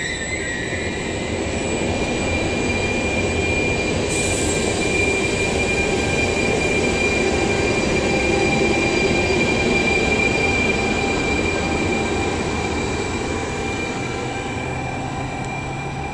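Trenitalia double-deck regional train, with an E.464 electric locomotive at the rear, rolling past along the platform: a continuous rumble of wheels on rail under a thin, steady high whine. It grows loudest about halfway through, then slowly fades.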